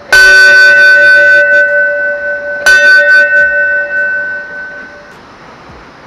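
Hanging metal temple bell rung twice by hand with its clapper, the strikes about two and a half seconds apart; each rings out in a clear, steady tone that slowly fades.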